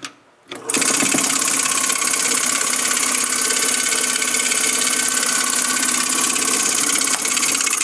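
Spex 8000 Mixer/Mill high-energy ball mill started with a click or two of its timer knob, then running: a loud, steady, dense mechanical rattle of the shaking grinding clamp and vial. It stops abruptly at the very end.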